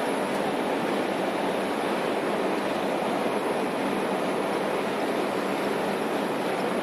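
Steady road and wind noise heard inside the cabin of a Toyota Land Cruiser driving along a sealed highway, an even rush with no distinct engine note.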